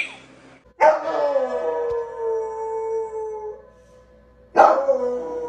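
A dog slams its front paws onto an upright piano's keys, striking a sudden jumble of notes, and howls along in one long, slowly falling howl. A second jumble of notes and another howl begin near the end.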